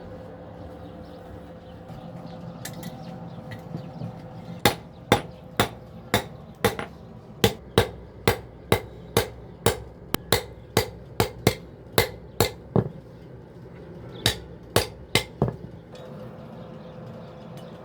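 Blacksmith's hammer striking metal on an anvil while forging a stable nail for tying animals: a run of about twenty ringing blows at two to three a second, a short pause, then three more blows. A steady low hum runs underneath.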